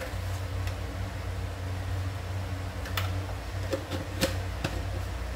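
Steady low hum from a gas stove burner heating a pot of coconut-milk curry, with a few faint clicks about three to four and a half seconds in.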